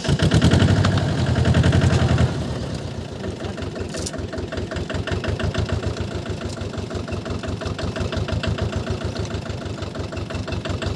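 Diesel farm engine starting up: it catches suddenly and runs loudly for about two seconds, then drops back to a steady idle with an even, regular beat.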